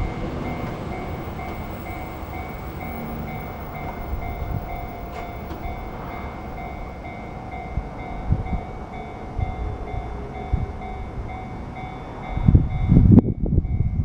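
Hanshin Railway level crossing alarm ringing, a fast, even, repeating electronic tone, over a low rumble. About a second before the end, loud low gusty noise swells up over it.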